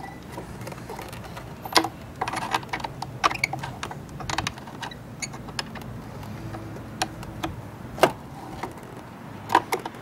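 Scattered metal clicks and light knocks of a 6 mm Allen key working in a scooter mirror's mounting bolt, irregular and spaced a second or so apart.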